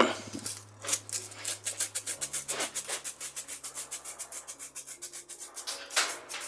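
Wet-and-dry sandpaper rubbed quickly back and forth on the small steel centre piece of FELCO 7 secateurs, rubbing off early rust marks. It makes even scratchy strokes at about six a second, after a sharp knock at the start.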